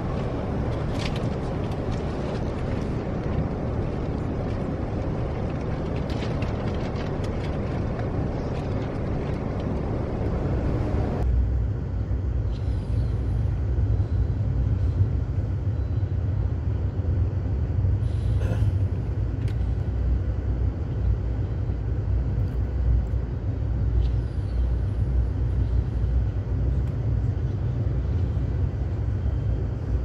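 Amtrak passenger train running, heard from inside a car as a steady rumble and rattle. About eleven seconds in the sound changes abruptly to a deeper rumble with less hiss.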